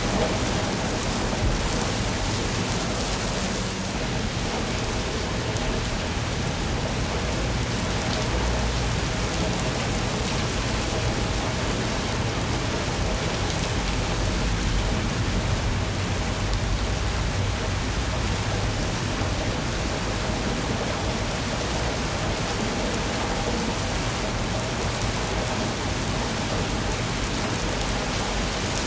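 Steady rain falling, an even rushing hiss with a low rumble beneath.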